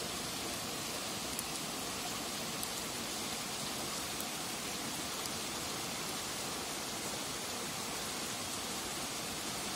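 A steady, even rushing noise with a few faint ticks.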